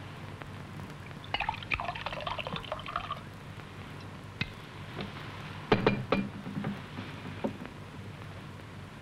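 Drink poured from a bottle into a glass, gurgling for about two seconds, followed by a few sharp clinks of glass and bottle. A steady low hum runs underneath.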